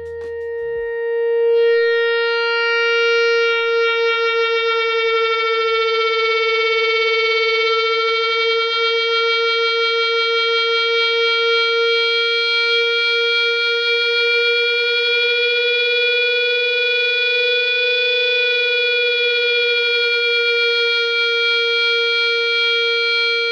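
Fender electric guitar's open string sustained by an E-Bow and held by a sustain pedal, one long steady note. A second copy of the note is slowly detuned against it, so from a few seconds in the tone pulses with a slow beating warble.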